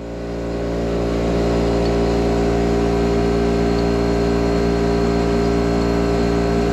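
A steady engine drone with many stacked tones, growing louder over the first second or so and then holding level.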